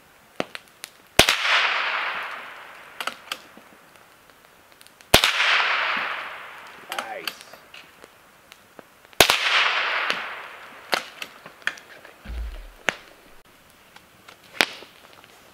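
Three rifle shots about four seconds apart, each sharp crack trailing off in a long echo, with small clicks in between.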